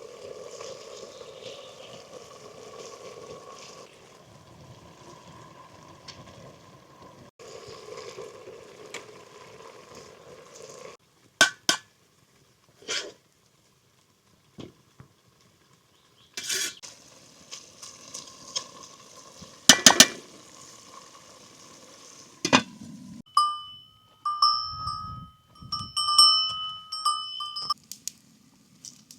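Food sizzling in a pan over a fire, then a series of sharp clinks and knocks of utensils against cookware. Near the end comes a broken, high pitched sound lasting several seconds.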